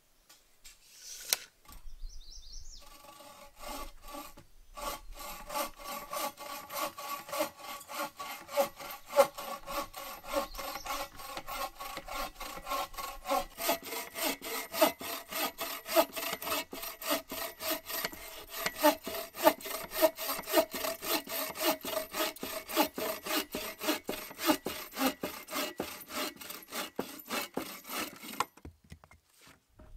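Bow saw cutting through a peeled spruce log on a sawhorse: a steady rhythm of back-and-forth strokes with a ringing tone under them. It starts a few seconds in and stops shortly before the end.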